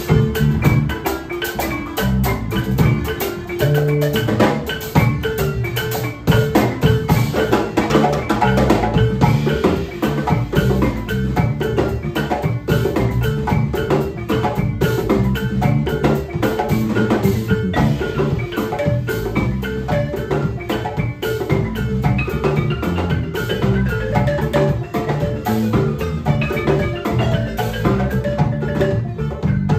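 Live band music led by a wooden marimba struck with mallets in quick runs of notes, over a drum kit and guitars.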